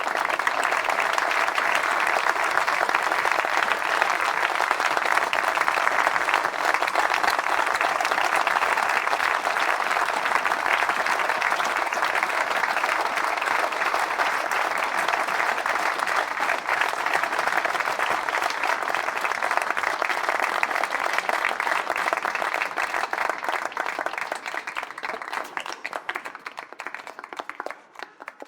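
Crowd applause: many hands clapping in a dense, steady mass, which thins out and dies away over the last few seconds.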